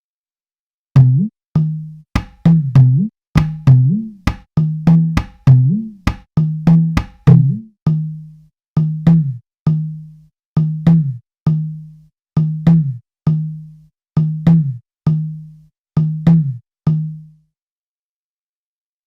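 Sampled Indian hand drum from the SwarPlug 4 virtual instrument, played as a string of sharp low strokes, about two a second. Many strokes carry a ringing bass tone whose pitch bends after the hit. It starts about a second in and stops shortly before the end.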